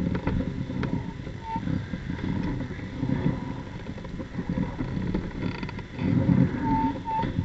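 Motorcycle engine noise, an uneven low rumble, with three short high chirps: one about a second and a half in and two near the end.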